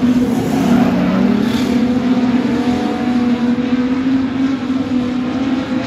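Production sedan race cars' engines running at speed on a speedway track: a loud, steady engine drone with several pitches overlapping and bending slightly.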